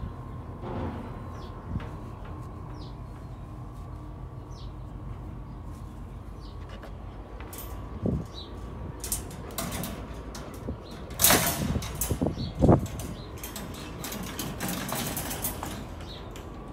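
Irregular rustling and clicking, loudest around two-thirds of the way through, over a faint steady background with a few short, faint bird chirps.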